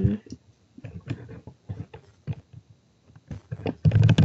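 Typing on a computer keyboard: short, irregular key clicks as a username and password are entered, with a louder cluster of clicks near the end.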